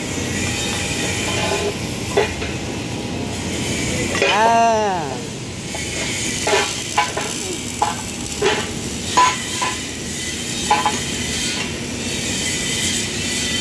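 Sharp metallic clinks and knocks as pieces of steel plate are set down and shifted on a steel I-beam, several in the second half, over a steady hiss of shop noise. About four seconds in there is one short tone that rises and then falls in pitch.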